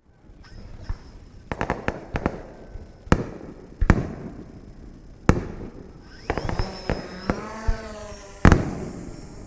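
Fireworks going off: sharp bangs at uneven intervals, a quick run of several reports about one and a half seconds in, then single bangs a second or more apart, the loudest near the end.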